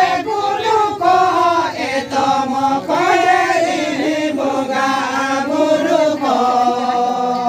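A group of voices singing a Santali lagre song together, with a harmonium and hand-played laced barrel drums. The singing phrases glide and break every second or so, and from about six seconds in a few steady held tones carry on under the voices.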